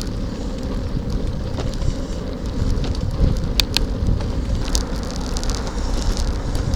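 Wind rumbling on the microphone while cycling, a low steady noise, with a few sharp ticks, the clearest about three and a half seconds in.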